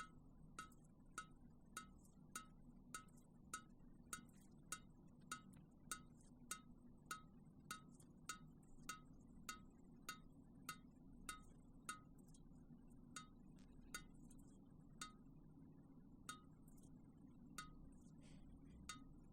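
Water dripping: single drops falling in a steady rhythm of about one every 0.6 seconds, each a short plink with a brief ringing pitch. In the last few seconds the drops come further apart and less evenly.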